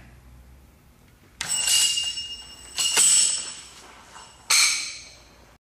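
Aluminum ring of an electromagnetic ring launcher clanking: three sharp metallic hits about a second and a half apart, each ringing with a high tone and fading.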